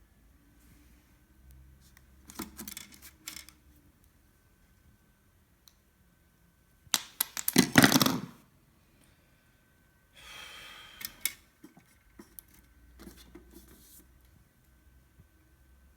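Hands handling packaging and parts in a small room: scattered rustles and light knocks, with one loud burst of crinkling and clatter a little past the middle and a shorter rustle soon after.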